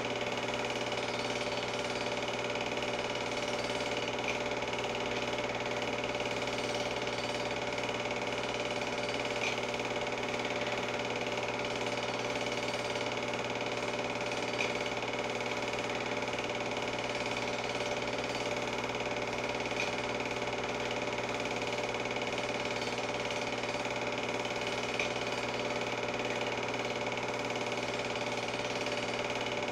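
Film projector running steadily: an even motor whir and mechanical clatter, with a faint tick about every five seconds.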